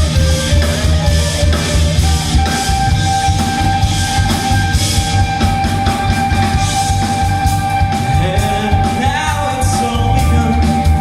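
Rock band playing live with drum kit, bass and electric guitar. A long held note comes in about two seconds in and carries on over the steady drum beat.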